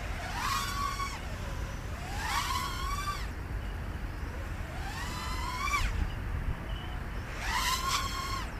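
Eachine Tyro 79S FPV racing quadcopter's motors and propellers whining in flight. The pitch rises sharply four times as the throttle is pushed up during flips and aerobatics, then falls away each time.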